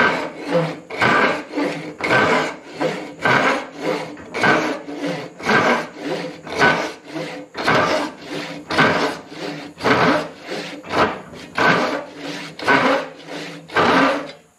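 Japanese-style pull saw rip-cutting along the grain of a hardwood post, a steady run of rasping strokes at about two a second.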